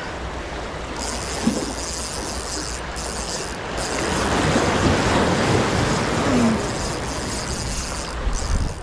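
Sea surf washing onto the shore, swelling to its loudest in the middle, with wind rumbling on the microphone.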